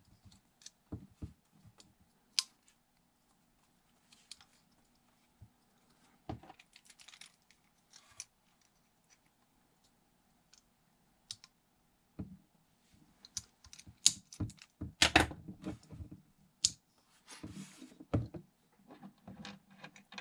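Scattered small clicks, taps and scrapes of a 3D-printed plastic airsoft pistol frame being handled, with small parts pressed in and a screwdriver working in it. The clicks are sparse at first and come thicker and louder in the second half.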